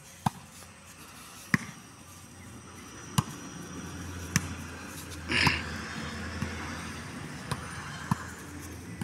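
A volleyball being struck by players' hands and forearms during a rally: about seven sharp slaps, spaced one to one and a half seconds apart. A louder, noisier burst comes about five and a half seconds in.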